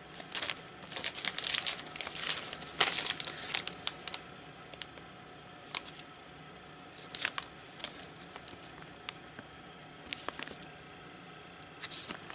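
Clear plastic sleeves and bags holding paper cards crinkling as they are handled and shuffled. The crinkling comes in bursts: a dense stretch for the first few seconds, a few brief rustles and ticks in the middle, and more starting near the end.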